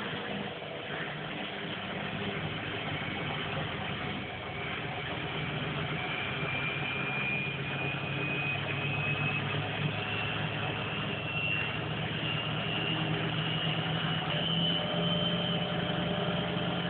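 Front-loading washing machine on its final spin, the drum speeding up: a steady motor hum with a high whine that rises slowly in pitch from about six seconds in, growing gradually louder.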